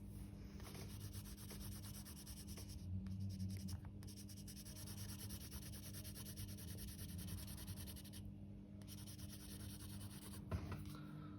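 Colour being shaded onto a paper drawing sheet in quick, scratchy back-and-forth strokes, with a brief pause just after the middle. A faint steady hum sits underneath.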